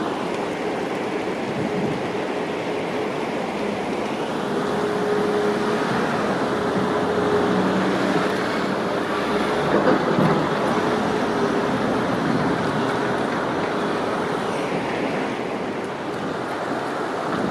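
Heavy construction machinery running with a steady engine hum over a constant rushing noise, with a brief knock about ten seconds in.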